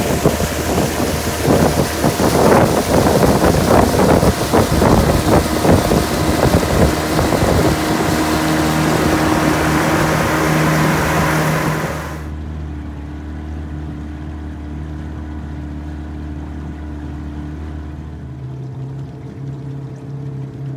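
Outboard motor on a freighter canoe running steadily under heavy wind and water rush on the microphone. About twelve seconds in, the wind and water noise cuts off suddenly, leaving the motor's steady low engine note, which changes pitch near the end.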